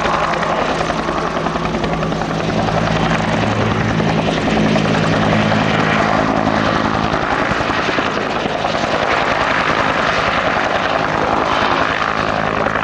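Bell UH-1H Huey helicopter in flight: the steady, loud turbine run under the rhythmic beat of its two-bladed main rotor.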